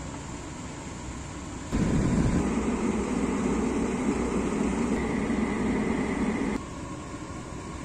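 Steady rushing air noise inside a car, from the air-conditioning blower and the moving car. It gets much louder about two seconds in, with a faint high whine added later, then drops back abruptly a couple of seconds before the end.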